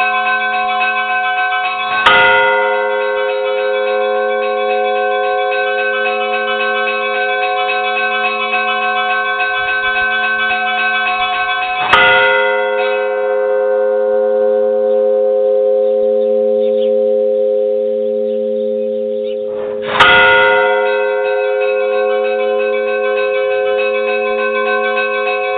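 A large church bell struck three times, about ten and then eight seconds apart. Each stroke rings on long with many steady tones, the higher ones fading first.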